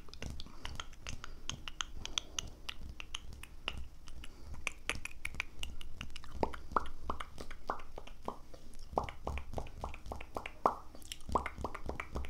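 ASMR mouth sounds: a rapid run of wet mouth clicks, joined from about six seconds in by deeper, pitched pops.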